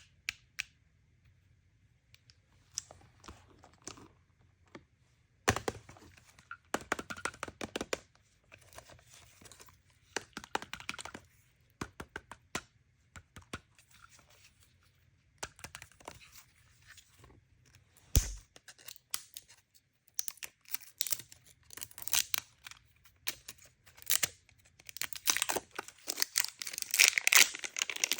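Toy packaging being torn open and crinkled by hand, in irregular short bursts of crackling and tearing with quiet gaps between. One sharp thump about two-thirds of the way through, and denser crinkling near the end.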